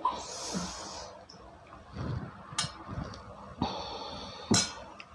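A metal spoon and bamboo skewers clinking and tapping against a ceramic plate as peanut sauce is spooned over skewered food: a few soft knocks and two sharp clinks, with a breathy hiss near the start.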